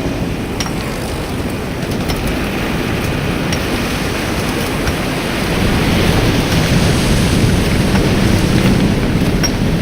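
Dense low rumble under a steady hissing wash, storm-like, swelling louder about halfway through, with a few faint clicks.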